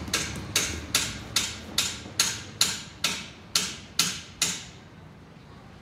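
Rhythmic wooden knocking from a large hand-turned potter's wheel as it spins, about two knocks a second. The gaps slowly lengthen as the wheel slows, and the knocks stop a little past four seconds in.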